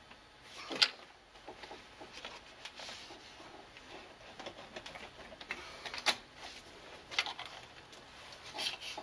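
Hands working among hoses and fittings in a car's engine bay: faint rustling and small ticks, with a sharp click about a second in and a few more clicks in the last three seconds.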